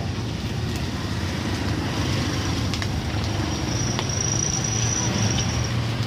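Steady low rumble of road traffic and a running vehicle engine, with a thin high whine for about two seconds in the second half.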